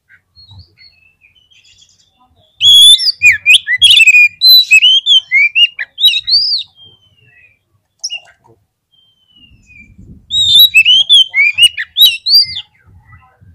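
Oriental magpie-robin (kacer) singing in an agitated, fighting mood: two loud bursts of rapid, varied whistled phrases full of rising and falling glides. The first comes about two and a half seconds in and lasts some four seconds; the second comes about ten seconds in. A few scattered notes fall between them.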